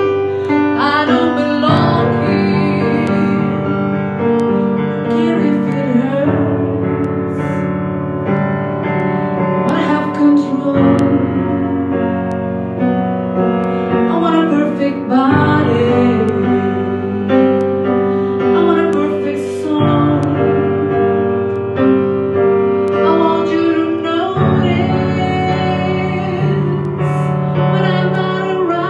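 A woman singing a song with piano accompaniment.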